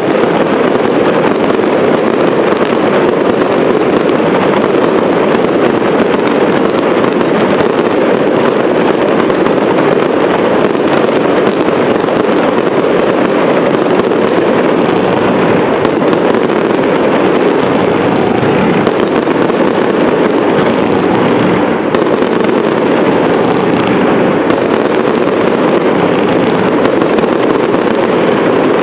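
Professional fireworks display firing a dense, loud barrage of aerial shells: many rapid, overlapping bangs and crackles with no pause.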